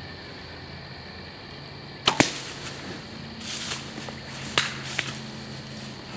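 A Bear Arena 30 compound bow shot about two seconds in: the snap of the string on release, followed a split second later by a louder crack as the arrow strikes. A burst of rustling follows, then two more sharp cracks.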